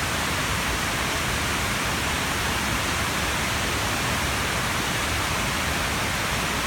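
Water pouring over a wide concrete weir and falling into the river pool below: a steady, even rush of falling water.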